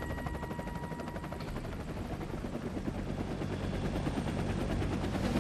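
Rapid, steady beating of a UH-1 Huey helicopter's rotor, mixed with machine-gun fire.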